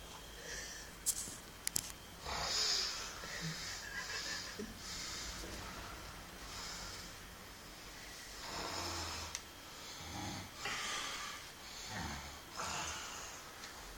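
Heavy snoring: a run of rasping, wheezy snores about once a second, some with a low rumble. Two sharp clicks come about a second in.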